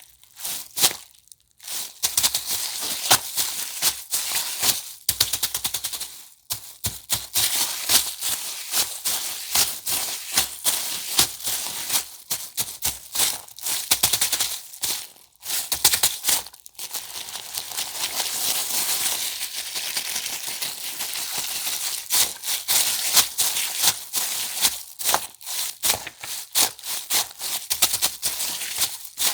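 Thin plastic film or bag being crumpled and handled, a dense, loud crackling with a few short pauses.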